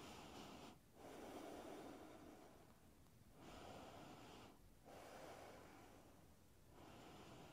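Faint, slow breathing: a few long breaths in and out, each a second or two, with short pauses between them.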